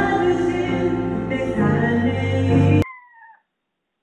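Music plays and cuts off abruptly about three seconds in; a domestic cat then gives one short, faint meow that falls slightly in pitch.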